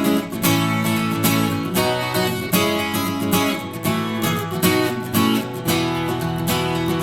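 Background music: acoustic guitar strumming in a steady rhythm, with a strong strum about once a second.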